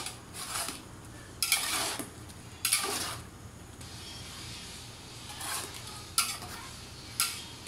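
Metal spatula and ladle scraping and clanking against a large metal pot while tossing noodles with shrimp. There are several irregular strokes, the two longest in the first three seconds and shorter clinks later.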